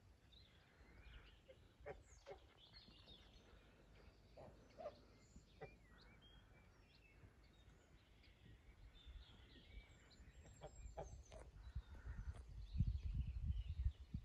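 Faint farmyard poultry: scattered short calls from chickens and geese in a pen, with small birds chirping higher up. A low rumble of noise on the microphone builds near the end.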